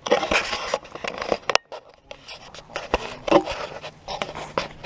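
Handling noise of a small camera held in the hand: fingers and skin scraping and rubbing on the housing next to its microphone, with sharp clicks and knocks. It goes quieter for about a second partway through, then the scraping resumes.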